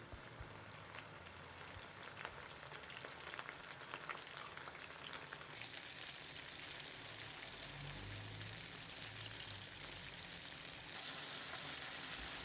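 Flour-coated chicken wings deep-frying in hot oil: a steady crackling sizzle with many small pops, growing a little louder about halfway through.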